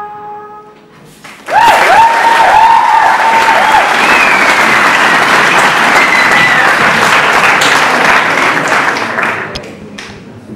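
A band's last held chord dying away, then an audience applauding loudly with a few gliding whistles, starting about a second and a half in and fading out near the end.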